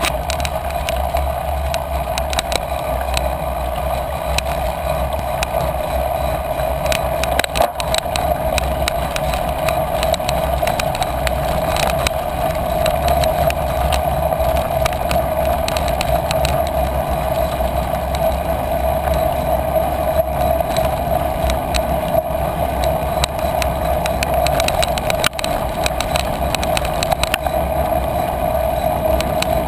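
Bicycle rolling along a grassy dirt trail: a steady rumble of tyres and wind noise, with frequent small clicks and rattles.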